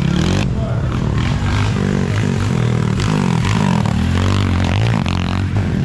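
Underbone motorcycle engines revving up and down over and over, several overlapping at once.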